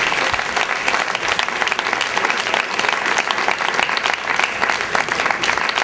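Crowd applauding: many hands clapping steadily and densely.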